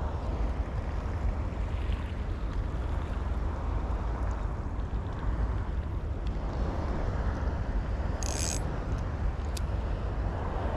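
Wind buffeting an open-air action-camera microphone, a steady low rumble, with a brief high rasp about eight seconds in.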